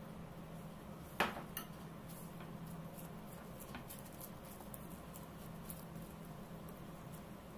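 A metal spoon clinks sharply once as it is put down about a second in, with a lighter knock just after. Then faint ticking and crinkling of plastic wrap as hands press minced chicken flat, over a low steady hum.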